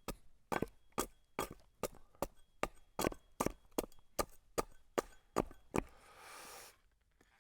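Rapid, even chopping strikes on split cedar, about two or three blows a second as a shake is trimmed and tidied, followed near the end by a short scraping rustle.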